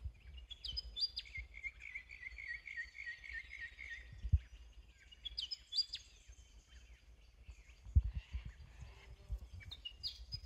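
Birds calling in open woodland: a short phrase of sharp high notes repeats about every five seconds, with a warbling run of lower notes for a few seconds near the start. A few low thumps stand out about four and eight seconds in.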